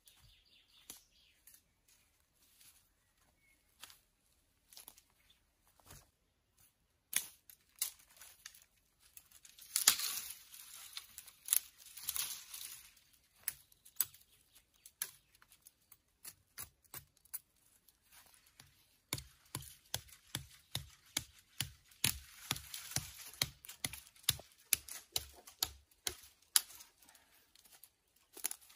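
Footsteps and rustling through leafy woodland undergrowth, with twigs snapping, while a thin dry sapling pole is gathered. A loud spell of rustling and tearing comes about a third of the way in. Later comes a long run of quick sharp snaps, about three a second.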